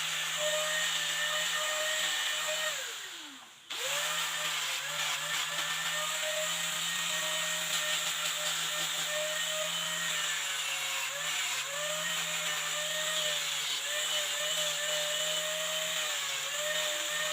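Electric power tool motor running at speed, its pitch dipping and wavering under load. About three seconds in it is switched off and winds down in pitch, then is switched straight back on and runs on.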